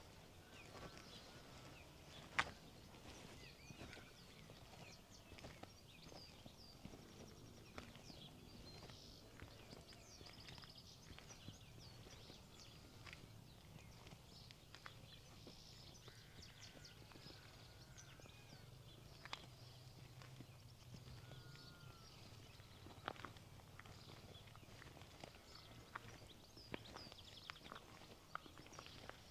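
Faint countryside ambience: small birds chirping, footsteps and light irregular clicks, with one sharp click about two seconds in. A faint low drone runs through the middle.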